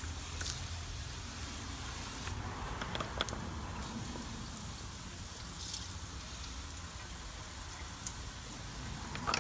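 Water spraying from a hose nozzle onto the steel subframe under a car, a steady hiss with a few faint ticks, rinsing off degreaser and spilt engine oil.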